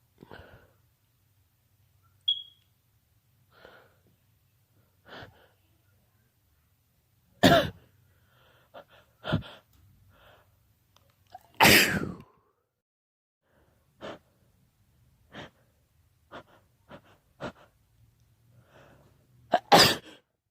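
A person sneezing three times, loud and sudden, with quieter short breaths and sniffs between: allergy sneezes brought on by pollen.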